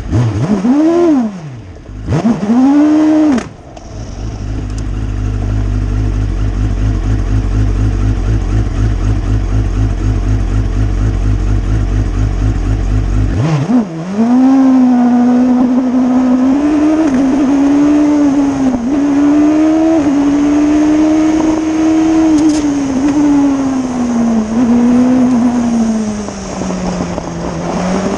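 Race car engine heard from on board: two quick blips of the throttle, then a low, pulsing idle while waiting on the start line. About halfway through it launches into a sustained high-revving run, the pitch rising and dipping repeatedly as the car accelerates up the hill.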